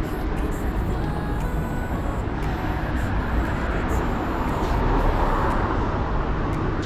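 Car on the move: steady road and engine noise, rising slightly about five seconds in.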